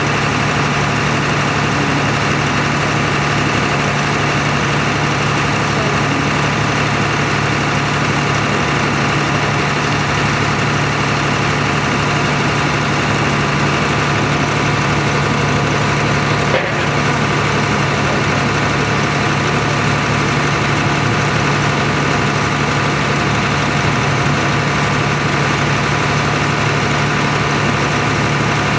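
A vehicle engine idling steadily, with one brief tick a little past halfway.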